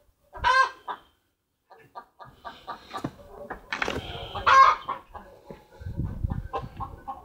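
Chickens clucking: a quick run of short clucks, with two louder calls, one about half a second in and one about four and a half seconds in.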